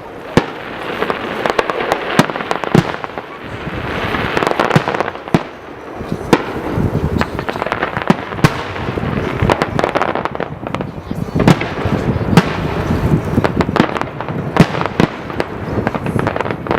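Aerial fireworks bursting in rapid succession: many sharp bangs with crackling in between, continuous and dense.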